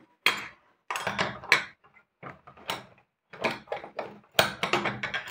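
Handling noises close to the microphone: a string of short rustles and knocks with brief silent gaps between them.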